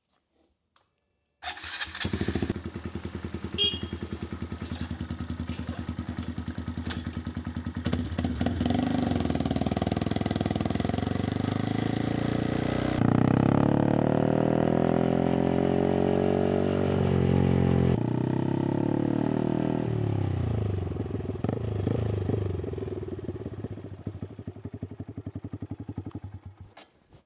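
Honda Grom's 125cc single-cylinder four-stroke engine, with a stainless aftermarket exhaust, starting suddenly about a second and a half in and idling. Past the middle the bike is ridden, its revs climbing and dropping in repeated sweeps through the gears, then it slows to a pulsing low note and stops near the end.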